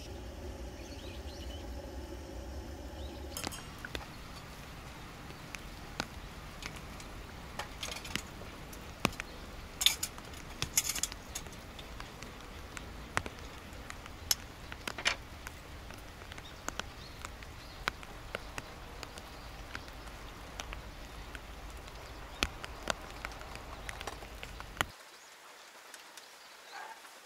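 Tongs and a ladle clicking and knocking against a frying pan and small bowls as noodles are served out, a scatter of short sharp clinks over a steady outdoor background hiss.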